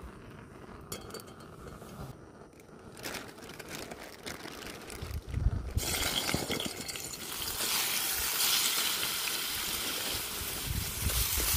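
A few light clinks and knocks, then, about halfway through, pork mince goes into a hot oiled pan and starts sizzling. The frying hiss builds and holds steady.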